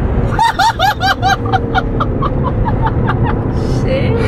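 A person laughing in a quick run of short "ha" bursts that trail off, over a low engine rumble.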